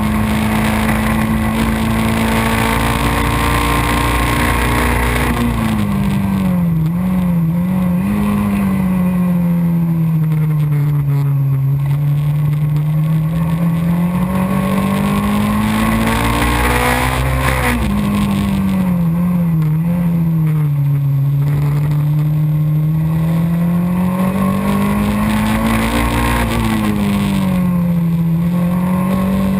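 Race car engine heard from onboard a Xenon kit car under race load, running hard and steady, then dropping in pitch with a few quick wobbles as it slows and shifts down for corners, three times, and climbing slowly back up as it accelerates out. Wind and road noise run underneath.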